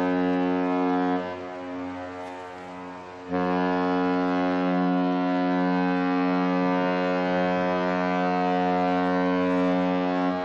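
Ship's horn blowing: a blast ends about a second in and its sound hangs on faintly, then a second long, steady blast starts about three seconds in and holds.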